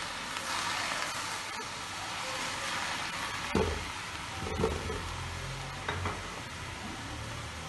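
Chopped onions sizzling in hot oil and butter in an aluminium karahi while a spatula stirs them, with a few sharp knocks of the spatula a little past halfway.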